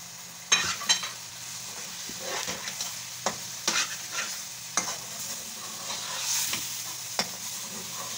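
Metal spatula scraping and clanking against a metal pot while stirring spinach and minced meat frying in oil, over a steady sizzle. The water has cooked off and the dish is being fried dry in its oil, the last stage before it is ready. The scrapes come irregularly every half second to a second, the loudest about half a second in.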